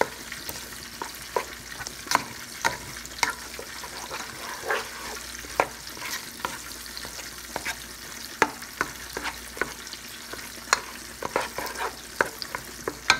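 Potato masher working through a pot of mashed potatoes, squishing, with irregular sharp clicks and knocks against the pot. Underneath is a steady sizzle of chicken fried steaks frying in oil.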